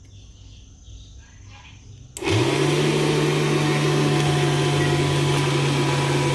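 Homemade vacuum cleaner's electric motor switching on about two seconds in. Its hum rises quickly to speed, then the machine runs loud and steady.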